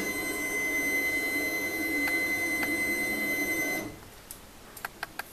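Small flatbed printer's tray-feed motor drawing the print tray into the machine: a steady motor whine with a high tone that runs for about four seconds and then stops abruptly, followed by a few faint clicks.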